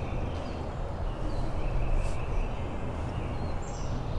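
Outdoor field ambience: a steady low rumble with faint, scattered short bird chirps and a thin high trill running underneath.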